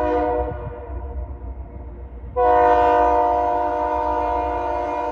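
Diesel locomotive air horn sounding as the Union Pacific light engines approach: a short chord that fades, then a louder, longer blast starting about two and a half seconds in. A steady low rumble runs underneath.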